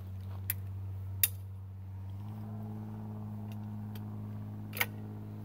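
A few sharp metallic clicks and clacks from a break-action Baikal SPR 110 double-barrel shotgun being handled and loaded, over a steady low engine hum that steps up in pitch about two seconds in.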